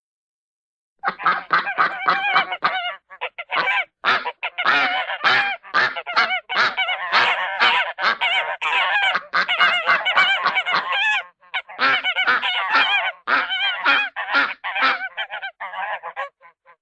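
Geese honking in a rapid, overlapping chatter of many calls a second, starting about a second in, with a brief pause after the middle.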